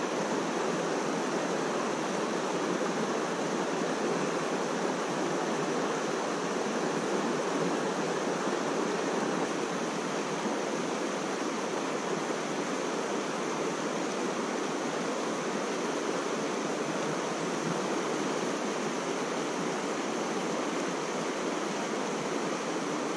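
Steady rush of a river flowing over stones.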